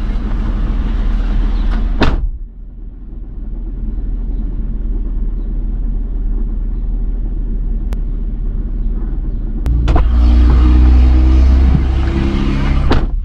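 Car idling, heard from inside the cabin. The driver's door shuts with a thud about two seconds in, muffling the outside noise to a low hum. It opens again near ten seconds, letting in a louder engine and street rumble, and shuts again just before the end.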